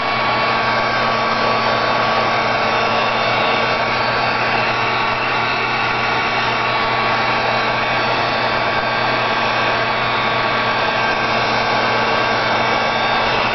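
Handheld dryer blowing steadily over a wet, ink-sprayed paper page: a continuous fan rush with a steady high whine.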